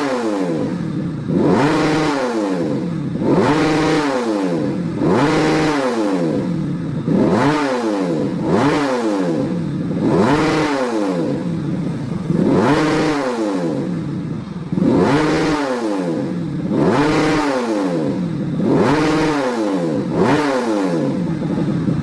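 A 130 cc underbone motorcycle engine fitted with an original Yamaha YZ magneto, revved in about eleven quick throttle blips, each rising and falling back, roughly one every two seconds.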